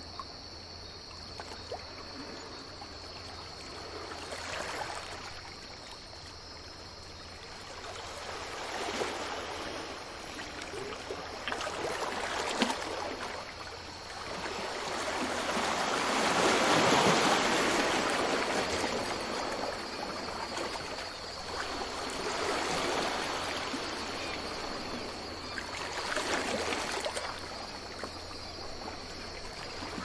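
Ocean waves breaking and washing up a beach, the surf swelling and fading every four or five seconds, with the largest wave about halfway through. A faint steady high-pitched hiss runs underneath.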